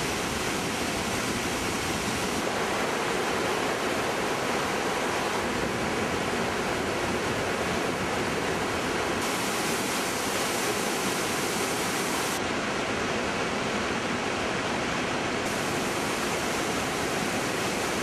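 The Iguaçu Falls' massive torrents crashing into the gorge in a steady, dense roar of rushing water. The higher hiss brightens and dulls a few times.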